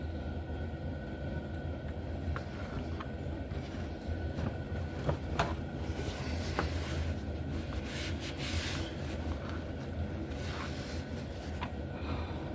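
Faint clicks and light scraping of small plastic and metal slot car parts being handled and cleaned, over a steady low hum, with a brief hiss about two-thirds of the way through.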